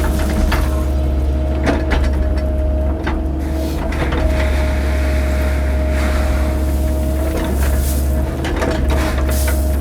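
Cat 308 mini excavator's diesel engine running steadily under load, with a constant whine over the low drone. Scattered sharp knocks of rock and gravel being moved come through it, and a rushing hiss joins for a few seconds in the middle.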